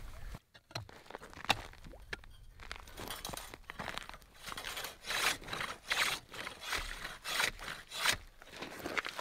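Hand ice saw cutting lake ice: the toothed blade rasps back and forth through the water-filled cut. The strokes begin about three seconds in and come a little faster than one a second.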